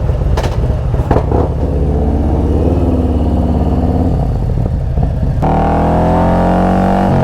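Motorcycle engine running, rising in pitch as it revs. About five seconds in it cuts abruptly to music with a steady droning tone.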